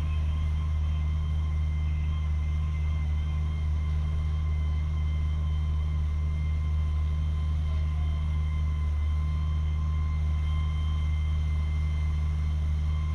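Fire engine running steadily while pumping water to the hose streams: a constant low rumble with a thin, steady whine above it.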